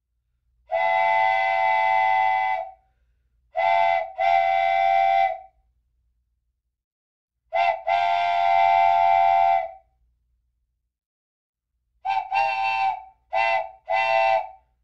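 A multi-tone horn sounding in blasts of a steady chord: a long blast about a second in, a short and a long one around four seconds, a short and a long one around eight seconds, then four quick short toots near the end.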